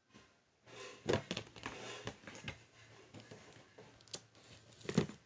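Plastic storage box being opened: the lid unclipped and lifted off, with rustling and several sharp plastic knocks as it is handled and set aside. The loudest knock comes near the end.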